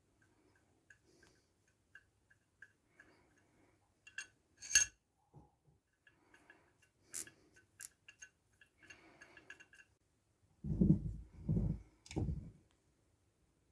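Small metal vise parts being handled: light metallic ticks and clinks with a ringing tone, one sharp clink about five seconds in, then a few dull knocks near the end.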